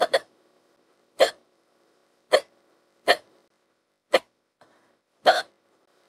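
A woman hiccuping over and over, about one sharp hiccup a second, with a quick double hiccup at the start.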